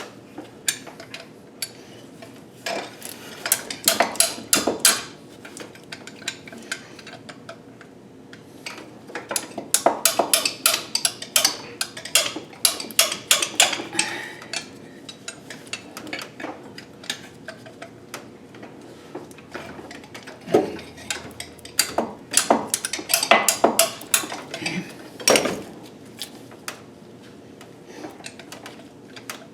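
Metal hand tools (sockets, ratchet and wrenches) clinking and clicking against engine parts in several bursts of sharp metallic clicks, as fasteners on the exhaust manifold are worked loose.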